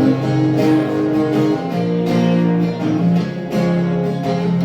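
Acoustic guitar strumming chords in an instrumental break, with no singing.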